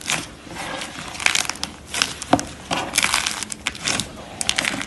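Slime being squeezed and worked by hand, giving irregular crinkling and crackling with a few sharper clicks.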